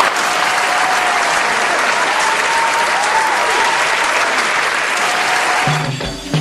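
Applause: a crowd clapping steadily, which stops about six seconds in.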